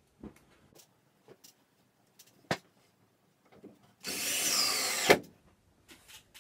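Power drill running for about a second into wood, ending with a sharp knock as it stops, after a few light knocks.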